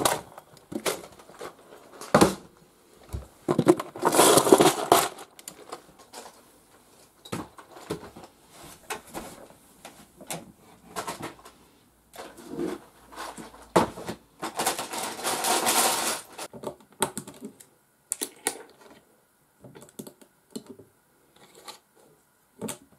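Loose plastic Lego bricks clattering as hands rummage through plastic storage boxes and drawers of parts, with many separate clicks of pieces being picked up and set down. Two longer stretches of rummaging, about four seconds in and again about fifteen seconds in, are the loudest.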